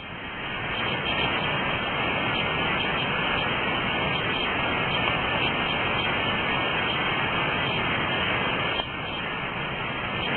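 Steady rushing of river water, an even hiss that drops a little in level about nine seconds in.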